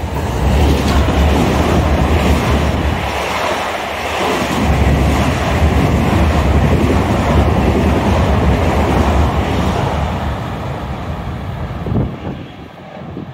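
Long Island Rail Road M7 electric train passing close by at speed: a loud rush of wheels on rail and moving air that comes on suddenly, with a short knock about twelve seconds in as the noise falls away.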